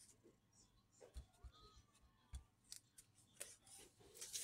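Faint plastic clicks and scraping of a laptop's palmrest being unclipped and lifted off the base, with a louder scrape near the end.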